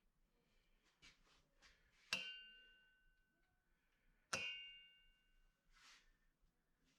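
Two sharp metallic clinks a couple of seconds apart, each ringing on and fading over about a second: metal tools or parts knocking together. Faint handling rustles and ticks come between them.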